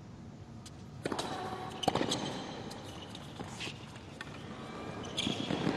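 Tennis rally on a hard court: a tennis ball struck by rackets and bouncing, a few sharp cracks about a second apart with the loudest near two seconds in, over a low crowd hush.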